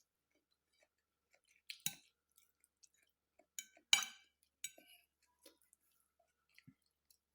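Close-up eating: chewing with a few sharp, crisp crunches or clicks, the loudest about two and four seconds in.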